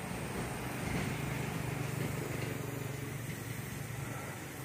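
A low engine drone that grows louder about a second in and then slowly eases off.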